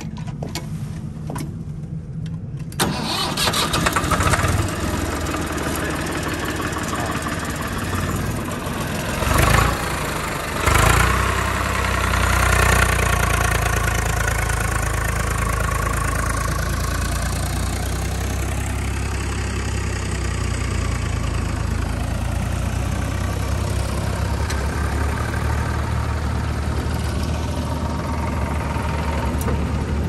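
Swaraj tractor's diesel engine running, picking up speed about three seconds in, with two short surges around ten seconds, then running steadily while hauling a gravel-laden trolley through sand.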